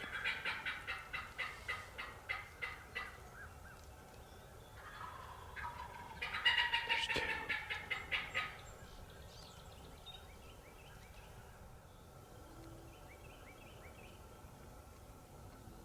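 Wild turkey gobbling twice: a rattling run of rapid notes at the start, then a louder one about six seconds in.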